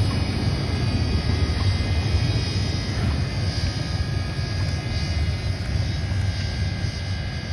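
Steam-hauled passenger train crossing a steel trestle viaduct: a steady low rumble of the locomotives and wheels running over the bridge.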